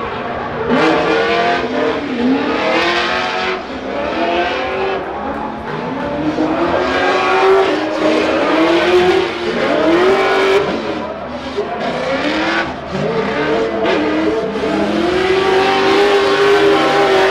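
Drift cars' engines revving hard, the pitch climbing and dropping again and again as the drivers work the throttle, over the steady hiss of tyres sliding.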